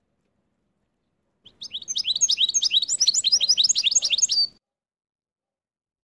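Goldfinch × canary hybrid (mule) singing a fast, twittering run of rapid high notes. It starts about one and a half seconds in, lasts about three seconds, and stops abruptly.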